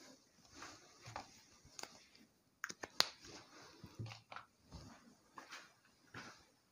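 Faint, scattered clicks and short rustles from a person handling sheets of paper and stepping away, with the sharpest click about three seconds in.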